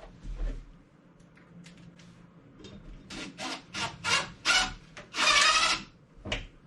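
A run of short rasping scrapes, about five, growing louder, the last one longer at close to a second.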